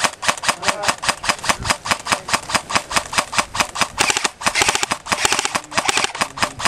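Airsoft guns firing rapidly, a steady run of sharp shots at about six a second, getting denser about four seconds in as more fire joins.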